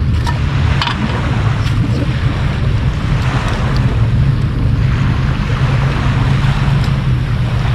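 Wind buffeting the microphone: a steady low rumble with a hiss over it, and a few light clicks in the first two seconds.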